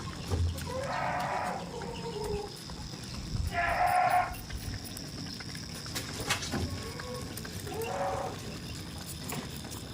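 Goats bleating: three separate bleats spread over the stretch, the middle one the loudest, with a few sharp clicks between them.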